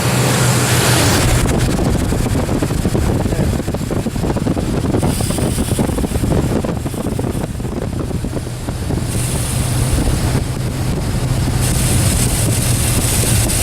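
Ford F-150 pickup's engine idling with a steady low hum, while water is squirted from a bottle around its PCV elbow to find the vacuum leak behind its lean running. A high hiss comes and goes several times.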